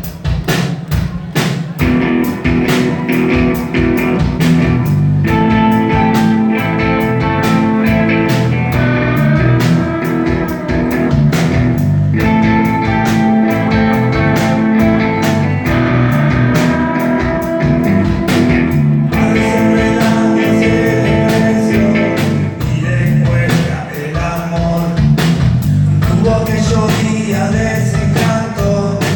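Rock band playing live, with guitars over a steady drum-kit beat. The music grows fuller about two thirds of the way through.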